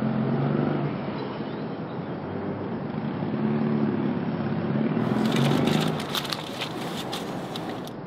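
Steady low rumble inside a car. From about five seconds in, crinkling and rustling of a brown paper bag as a bottle is handled in it.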